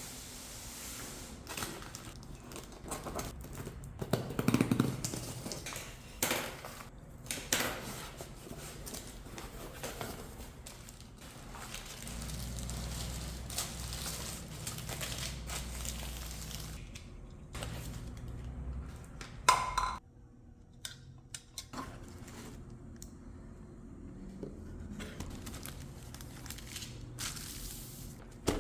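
A package being unboxed by hand: packaging crinkling and rustling, with scattered clicks and knocks as the contents are handled.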